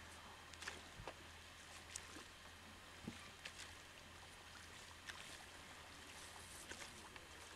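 Near silence: faint outdoor background with a low steady hum and a few scattered soft clicks.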